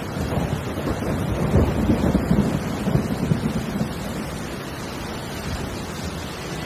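Steady heavy rain with a low rumble of thunder that swells about a second in and fades back into the rain after a few seconds.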